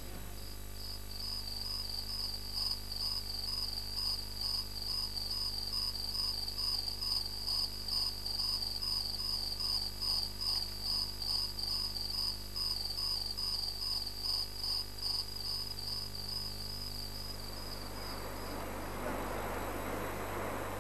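A cricket-like insect chirping: a high trill in steady, regular pulses that stops a few seconds before the end. A broad, steady rushing noise takes over after it stops.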